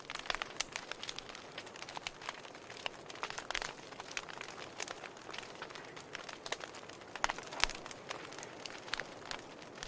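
Wood fire in a fireplace crackling: irregular sharp snaps and pops over a soft steady hiss, with a louder pop about three quarters of the way through.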